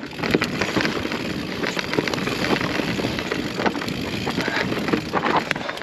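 Mountain bike rolling downhill over loose volcanic rock: tyres crunching over stones, with a steady stream of small knocks and rattles from the bike.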